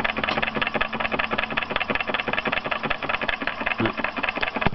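Homemade walking-beam Stirling hot-air engine with a diaphragm running steadily, with a rapid, even clatter.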